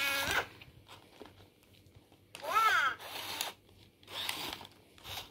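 A Furby's electronic voice: a brief held tone right at the start, then a short chirpy call that swoops up and down in pitch about two and a half seconds in. Between the calls are bursts of whirring and rustling from the toy's motor and its plush body being handled.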